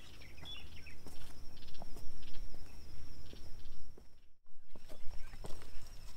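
Footsteps on a rocky, stony hiking trail: irregular scuffs and crunches of boots on loose stone, with a brief chirp near the start. The sound drops out for a moment about four seconds in.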